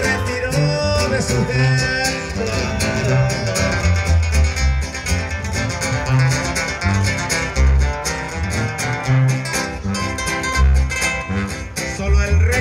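Live regional Mexican band music as heard from the crowd: a tuba pumps a rhythmic bass line under guitars and drums, with a singer on the microphone.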